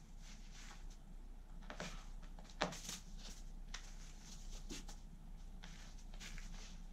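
Soft scuffing and rustling from a cat batting and biting a small fabric toy across carpet, in short scratchy bursts, with one sharp knock about two and a half seconds in, over a faint steady hum.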